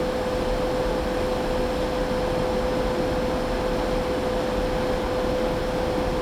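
Printer running with an even mechanical hum and a steady mid-pitched whine that does not change, with no separate clicks or strokes.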